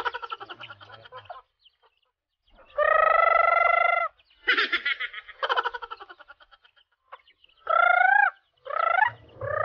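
Native chickens calling: one long, even squawk, then a run of rapid clucks, then two short rising squawks near the end.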